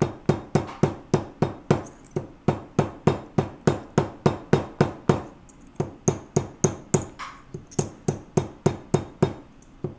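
Plastic-faced mallet striking a silver tube rivet on a steel bench block in a steady run of quick taps, about three or four a second, peening the flared rivet down around its edge to set it.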